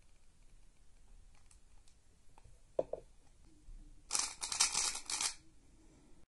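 A freshly lubed YuXin Little Magic 3x3 speed cube being turned by hand: a few light plastic clicks, then a rapid clatter of the layers turning for just over a second, starting about four seconds in.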